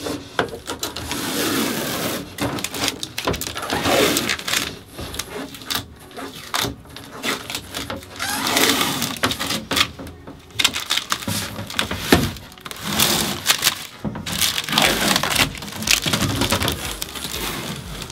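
Protective plastic film being peeled off a splashback panel and handled, crackling and crinkling in irregular swells.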